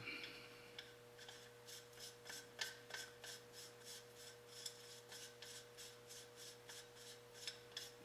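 Faint, quick, repeated rasping as a metal muzzle fitting is twisted by hand onto the threaded muzzle of an AR-15 barrel, threads and fingers rubbing on the steel.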